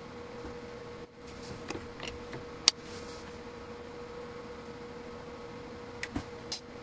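Sharp clicks on a surge-test bench: a few clicks, the loudest a single snap a little under three seconds in, then another short cluster of clicks near the end, over a steady faint electrical hum.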